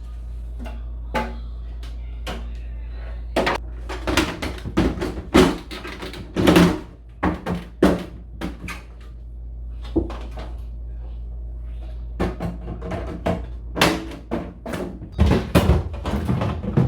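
Irregular clatter and knocks of containers, shelves and doors being handled while a refrigerator is packed, over a steady low hum. The knocks come thickest from about four seconds in and again near the end.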